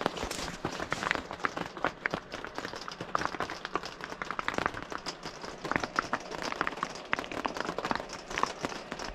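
Heavy rain hitting the roof and canvas of a pop-up camper from inside: a dense, irregular ticking of drops that keeps on without a break.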